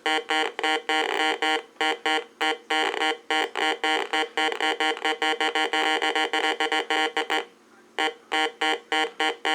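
Heathkit GD-1190 metal detector's audio tone responding to a metal target: a buzzy electronic tone at one steady pitch, chopped into rapid choppy beeps several times a second. It drops out briefly about seven and a half seconds in, then resumes.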